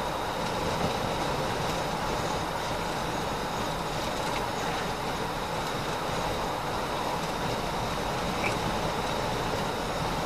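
Steady road and engine noise inside a moving police patrol car, with a thin steady high tone running underneath.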